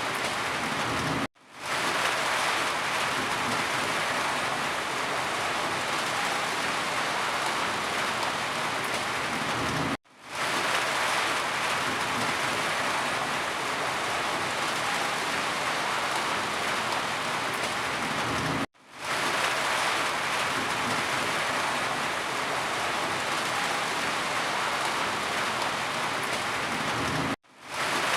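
Steady rain falling, a dense even hiss. It cuts out to silence for a moment about every nine seconds and fades quickly back in, four times.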